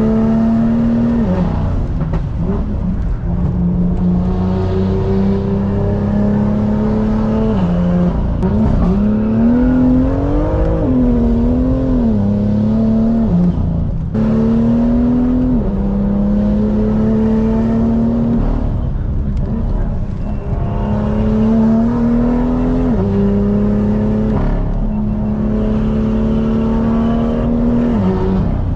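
Tuned BMW M2 straight-six driven hard: revs climb through each gear and drop sharply at each upshift, about six times, with a stretch of revs rising and falling unevenly about a third of the way through.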